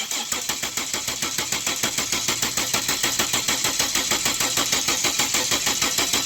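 2006 Ford Falcon engine cranking on its starter motor at a steady, even rhythm without catching. This is a crank-no-start, which the mechanic thinks comes from a lot of water in the fuel tank.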